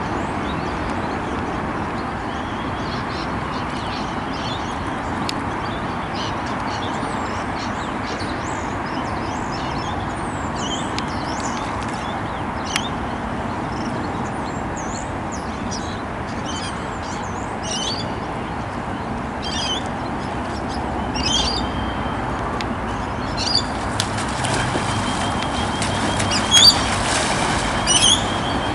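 Birds calling over a steady background hiss, with many short high calls throughout. The calls grow louder and more frequent in the last several seconds, and near the end a pelican splashes and flaps across the water as it charges.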